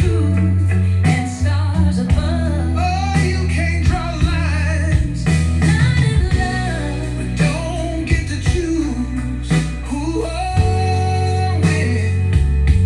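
A song with a singing voice and guitar over a heavy, steady bass line, played back through a Yamaha AX-396 stereo amplifier and loudspeakers.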